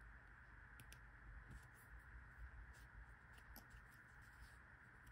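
Near silence: faint room tone with a few soft, scattered small clicks, as of small metal parts being handled.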